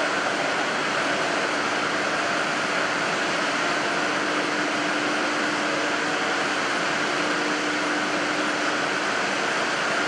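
Steady machinery noise of a running cable sheathing and winding line: an even hiss with a faint low hum, unchanging.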